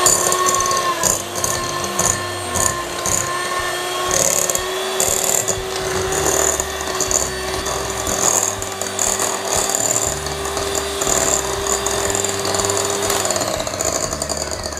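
Electric hand mixer whisking cream cheese in a glass bowl: a steady motor whine that winds down and stops near the end.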